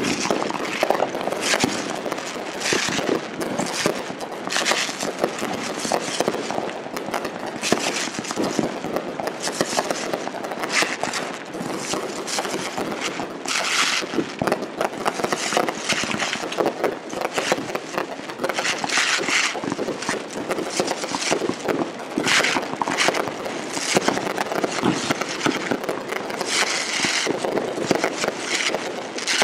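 Fireworks display going off in a rapid, continuous barrage of bangs and pops, with several longer spells of crackling.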